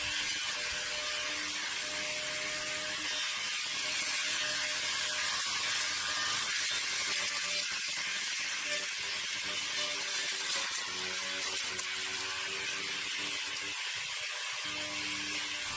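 Electric motor whining as it spins a robot mower's trimmer head, with a steady hiss from the head cutting through weeds and grass; the whine shifts in pitch now and then as the load changes.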